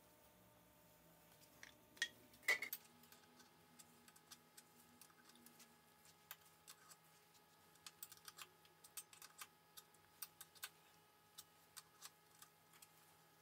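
Light metallic clinks and ticks of hand tools working a small part in a stopped metal lathe, over a faint steady hum. Two louder clinks come about two seconds in, the second one ringing, followed by scattered lighter ticks as a brush and then a wrench are used on the part.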